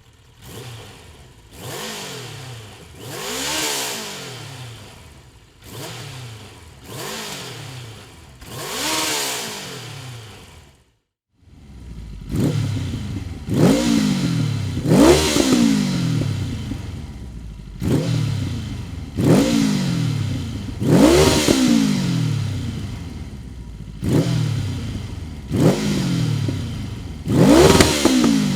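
Yamaha XJ 900 Diversion's inline-four revved repeatedly while standing, through a Dominator full exhaust system. Each blip rises sharply and falls back to idle. After a brief cut about eleven seconds in, a second, louder run of about nine sharper revs follows.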